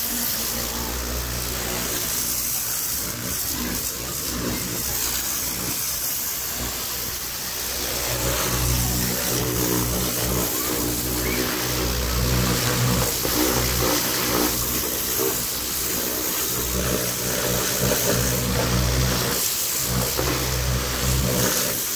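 Electric high-pressure plunger-pump car washer running under load: a steady motor-and-pump drone, with the hiss of the water jet spraying on top. It grows a little louder about eight seconds in.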